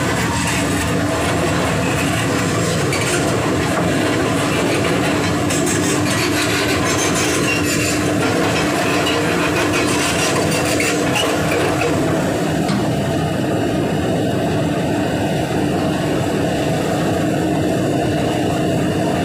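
Heavy machinery running steadily with a constant droning hum, and a rattling clatter over it that dies away about twelve seconds in.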